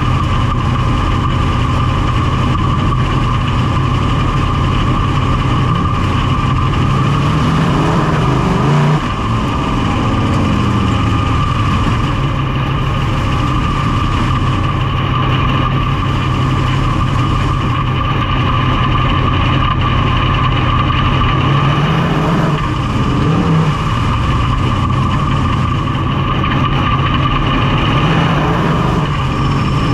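Big-block V8 of a Super DIRTcar Series dirt modified running at low, steady pacing speed, heard from inside the open cockpit. The revs rise briefly three times as the throttle is opened.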